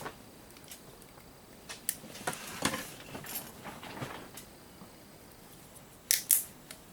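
Hand tools snipping and prying at a surge protector's plastic casing and metal parts: scattered sharp clicks and snaps, busiest about two to four seconds in, with two loud clicks just after six seconds.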